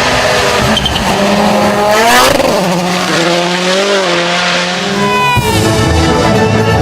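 Rally car engine at high revs, its pitch climbing through a gear and then dropping sharply at a shift about five seconds in, with tyre and road noise underneath.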